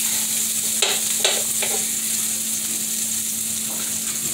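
Chopped green onions sizzling in a hot skillet with a steady hiss, and three sharp knife chops on a wooden cutting board about a second in.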